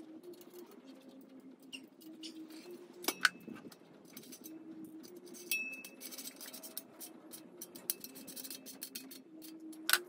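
Steel frame parts of a concrete mixer stand being handled and fitted together: light metal clinks and knocks, with a sharp clank about three seconds in and another at the end, and a brief metallic ring around the middle.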